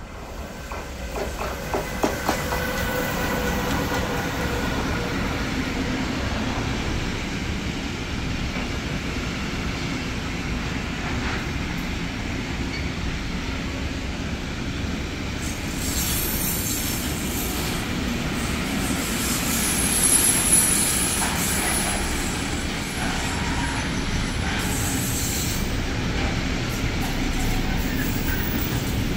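Siemens Vectron electric locomotive of class 386 passing at the head of a freight train, with the steady rumble of wagons rolling on the rails. A brief high wheel squeal comes about two-thirds of the way in.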